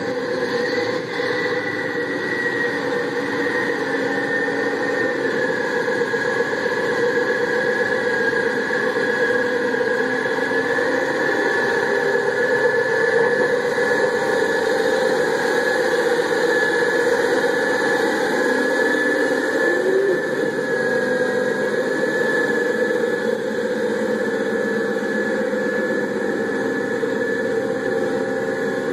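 Komatsu articulated dump truck's diesel engine running steadily, with a steady high whine over the engine note.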